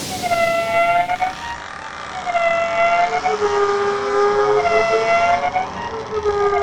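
Long horn-like tones at two pitches, a higher and a lower, each held about a second and sounding in turn every second or two, sometimes overlapping: a cartoon railroad crossing's 'screaming' voice effect.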